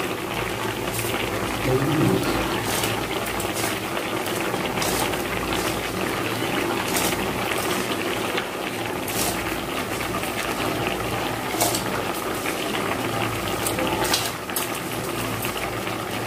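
Milk boiling in a brass pongal pot on a gas stove: a steady bubbling hiss with small pops scattered through it.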